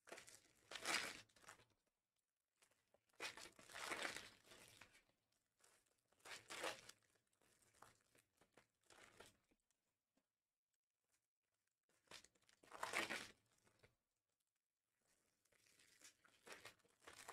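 Panini Prizm foil trading-card pack wrappers being torn open and crinkled by hand, in several separate bursts of tearing and rustling with pauses between.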